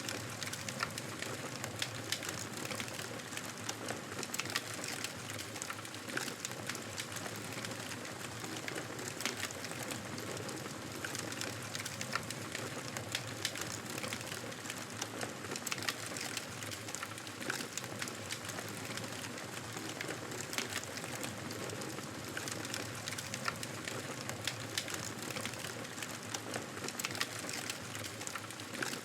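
Wood fire crackling steadily: a dense, irregular run of small pops and snaps over a soft continuous hiss.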